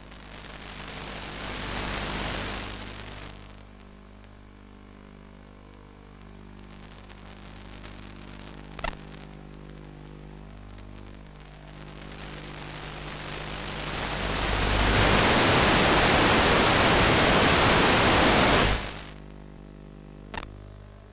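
Radio static hiss over a steady low electrical hum, from an analog FPV video link recording. The hiss swells briefly at the start, then grows loud for several seconds near the end and cuts off suddenly. Two sharp clicks come midway and near the end.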